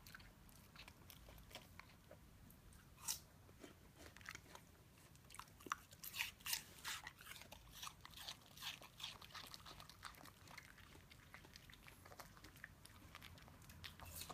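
A Shiba Inu crunching and chewing a piece of raw pear, a run of crisp bites that is busiest in the middle and thins out toward the end.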